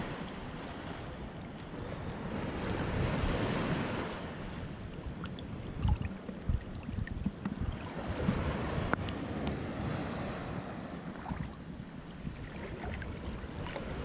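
Ocean surf washing on the shore with wind on the microphone; the surf swells louder about two to four seconds in, and a few low gusts thump on the microphone later on.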